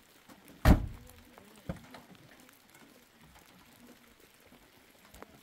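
A pickup truck's door slammed shut with a heavy thump, followed about a second later by a lighter knock.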